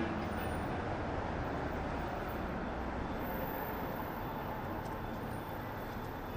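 City street traffic noise: a steady rumble of passing vehicles that slowly fades a little.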